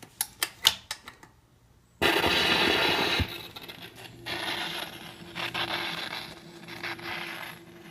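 Record changer of a 1957 RCA 45 rpm record player cycling between records: a quick run of mechanical clicks, a short pause, then about a second of loud scraping ending in a thump, followed by softer crackling hiss of the stylus in the groove before the next record's music begins.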